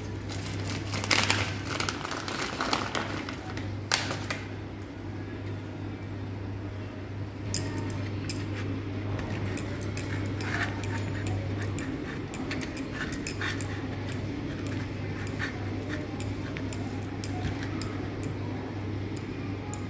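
Paneer rubbed over a stainless steel grater in many quick scraping strokes, after a few sharp clinks and knocks on a steel plate in the first seconds. A steady low hum runs underneath.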